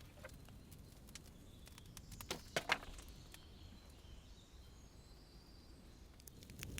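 Wood campfire crackling faintly, with a few sharp pops about two and a half seconds in, over quiet outdoor ambience with faint birdsong.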